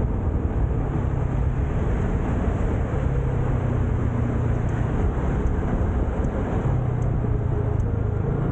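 Motor scooter running with a steady low engine drone and road noise, while heavy traffic, a large bus among it, passes close by.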